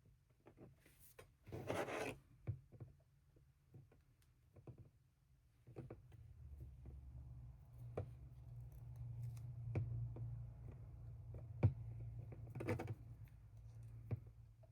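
Hands handling a small porcelain doll and its pipe-cleaner armature: scattered light clicks and taps with short rustles, the loudest rustle about two seconds in. A low hum sets in about halfway through.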